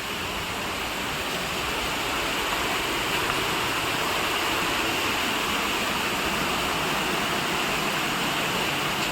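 Waterfall's water rushing, a steady hiss that swells slightly a couple of seconds in and then holds.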